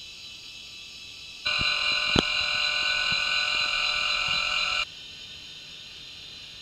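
Electric linear actuator running for about three seconds, a steady whine of its motor and gearing as it pushes the tabletop up to tip it, starting and stopping abruptly. A sharp click comes just after it starts.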